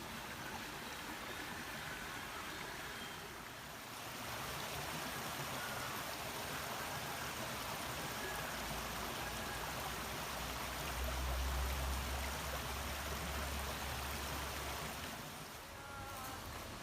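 River water flowing steadily, with a low rumble from about eight seconds in until near the end.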